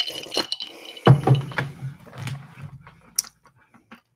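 A person drinking from a glass jar close to the microphone: gulping and swallowing sounds, then a low voiced breath out for a second or so, and a single sharp click about three seconds in.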